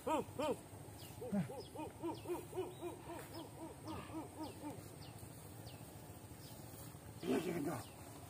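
A rapid series of owl-like hoots, about four a second, each call rising and falling in pitch. Loud at first, it fades to a fainter run, then comes a short louder burst of hoots near the end.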